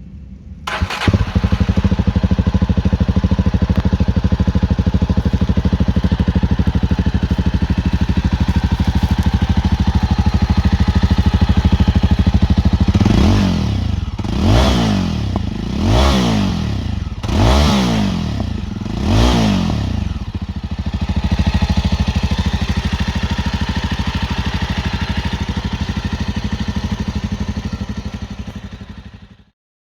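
Jawa Perak's single-cylinder engine running through its stock dual exhausts. It starts about a second in and idles steadily, then the throttle is blipped four times in quick succession, each rev rising and falling. It settles back to idle and cuts off near the end.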